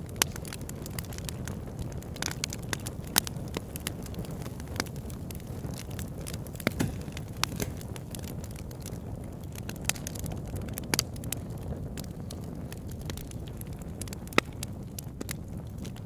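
Steady low rumbling noise with scattered sharp crackles and pops at irregular intervals.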